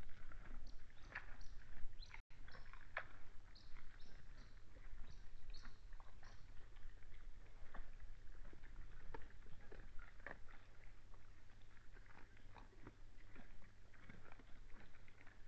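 Red deer feeding at a pile of feed on the ground, with an irregular run of crunches and clicks as they bite and chew, over a steady low hum.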